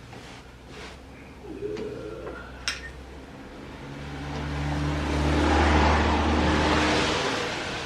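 A road vehicle passing by, its engine and tyre noise swelling over a few seconds and then fading, after a few light metallic clicks and one sharp tap from work on the car.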